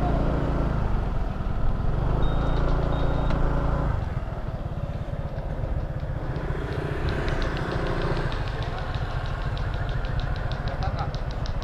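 Motor scooter engine running as the scooter rolls slowly, then dropping to a quieter idle about four seconds in.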